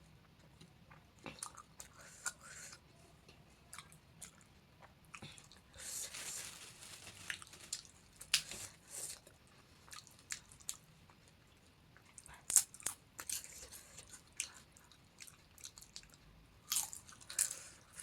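A person biting and chewing crisp panipuri close to the microphone: irregular crunches and crackles of the fried puri shells, the sharpest about twelve and a half seconds in.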